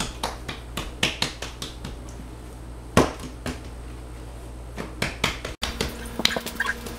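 Hands pressing and patting a ball of soft puff pastry dough on a floured countertop: irregular soft slaps and taps, the loudest about three seconds in.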